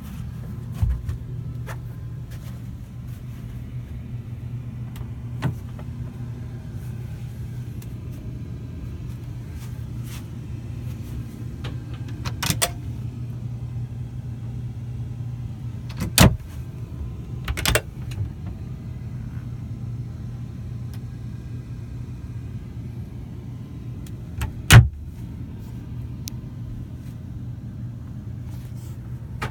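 Steady low hum with a few sharp clicks and knocks from a wooden cabinet door being opened and shut. The loudest knock comes near the end.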